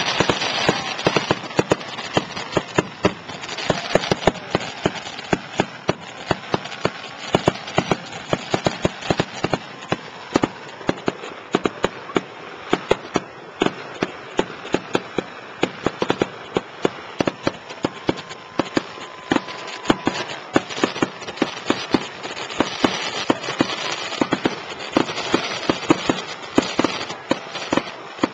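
Fireworks going off in a rapid, irregular barrage: bursting shells give several sharp bangs a second over a continuous crackle and hiss.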